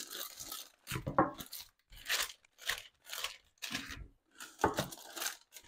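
Parchment paper crinkling and rustling as a rolling pin presses dough flat between two sheets, in repeated short strokes about two a second.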